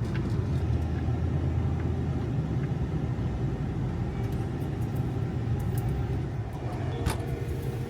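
Car driving, a steady low rumble of engine and road noise, with a single sharp click about seven seconds in.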